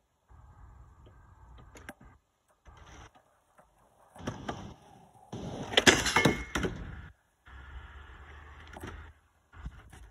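A skateboard hits a low metal rail and slides with a loud scraping clatter about six seconds in. Around it are sharper knocks of the board and wheels on the wooden pallet deck.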